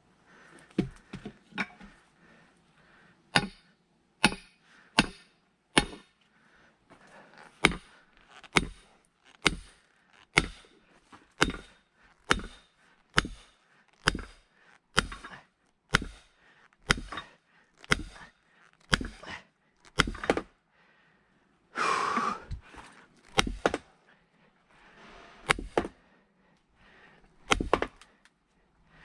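Firewood being split by hand: a long run of sharp knocks, steady at about one every 0.7 seconds. About 22 seconds in there is a longer noisy burst, and after it a few more strikes.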